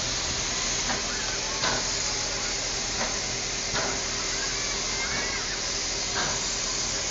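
Steam locomotive standing, with a steady hiss of escaping steam, broken by a few soft knocks and faint voices in the background.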